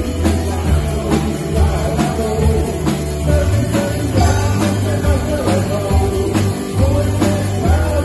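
Live rock band playing: a drum kit keeping a steady beat with a heavy bass guitar line underneath and other pitched parts above.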